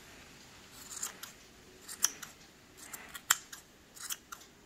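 Scissors snipping through wool yarn while trimming a pom-pom: a few short, sharp snips roughly a second apart, cutting loose loops and straggly ends.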